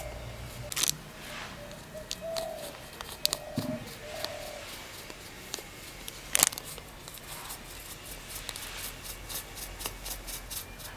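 Scattered clicks and knocks of hands working with kitchen utensils and food, two of them sharper, about a second in and past the middle, with a few short chirps in the first few seconds.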